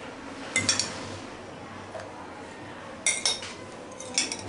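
A spoon clinking and scraping against a bowl as the last of the mutton masala is scraped out over the rice. There are three short bursts of clinks: about half a second in, about three seconds in, and just after four seconds.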